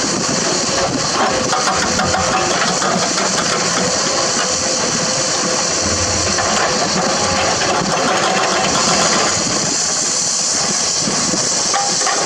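Crawler excavator's diesel engine running steadily, with a constant high hiss over a steady mid-pitched hum; the hiss grows stronger about nine seconds in.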